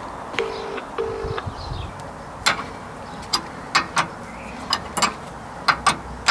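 A pigeon coos twice in short notes, then a series of about nine sharp, irregular clicks and knocks, metal or plastic being handled on or around the car.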